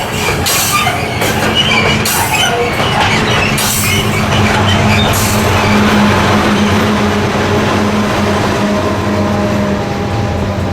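Heavy diesel-hauled limestone freight train running, its wheels clattering over rail joints every second or so with some wheel squeal, in the first half. Under it runs the steady low drone of the diesel locomotive's engine.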